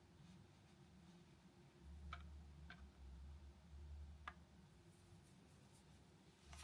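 Near silence with three faint, short clicks about two, two and a half and four seconds in: the small segment switches of a mechanical timer plug being pushed with a screwdriver.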